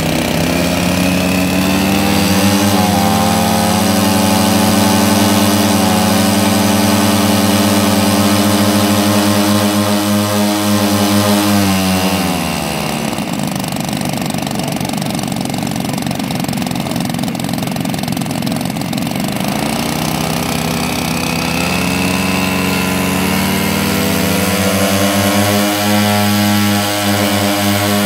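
Engines of a large twin-engined radio-controlled Messerschmitt Bf 110 model running on the ground during a run-up. They hold high revs, drop to a lower, rougher idle about twelve seconds in, then rise steadily back to high revs over the last several seconds.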